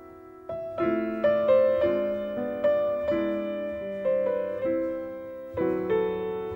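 Piano playing a slow ballad introduction, chords struck one after another, each left to ring and fade.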